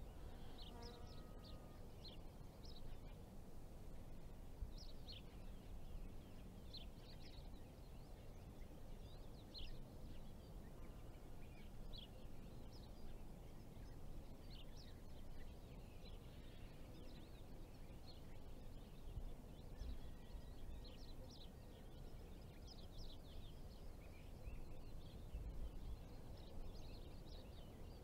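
Faint outdoor ambience: small birds chirping and calling in short, scattered notes throughout, over a low steady rumble.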